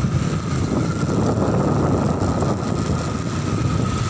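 Two-wheeler engine running while riding, with a steady rush of wind on the microphone and a faint steady whine.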